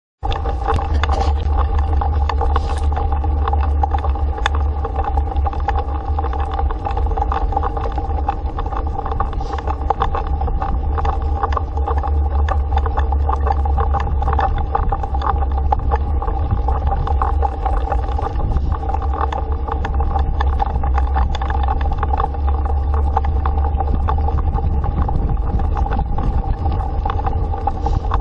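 Dog scooter rolling fast over a packed-dirt road, heard from a camera mounted on it: a steady heavy rumble of wind and tyres with a constant hum and a stream of small gravel clicks and rattles.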